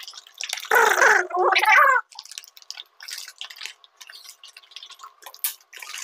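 Liquid sloshing inside a capped plastic bottle being shaken to mix two liquid supplements. The sloshing is loudest in the first two seconds, then thins out to lighter scattered splashes.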